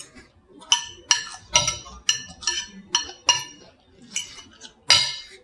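Metal fork clinking and scraping against a plate while salad is speared: about nine sharp, ringing taps over a few seconds, the last one the loudest.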